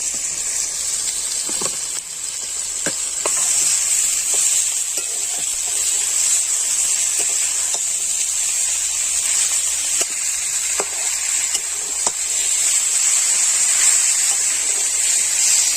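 Vegetables (fried potatoes, cauliflower and beans) sizzling in hot oil in a kadai with a spiced tomato masala, a steady hiss that grows louder about two seconds in, with scattered sharp clicks.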